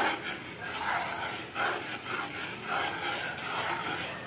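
Metal spatula scraping and stirring a thick sauce around a stainless steel wok, in repeated strokes about two a second.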